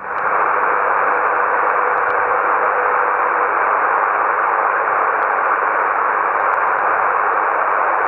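Steady hiss of a Yaesu transceiver's unsquelched receiver on 27 MHz lower sideband between transmissions, with no signal coming in. A faint steady tone sits under the hiss for the first three seconds or so.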